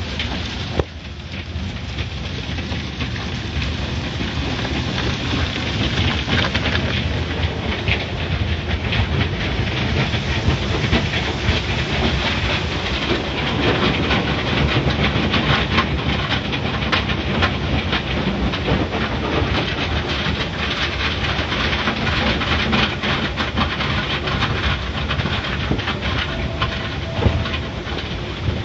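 Automatic car wash heard from inside the car: cloth brushes and hanging cloth strips scrubbing and slapping over the body and glass amid rushing water spray, a steady loud wash with constant rapid clatter.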